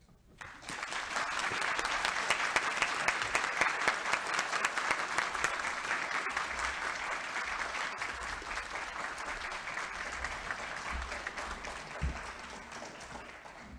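Audience applause: many people clapping together, starting about half a second in and slowly dying away toward the end, with a single low thump near the end.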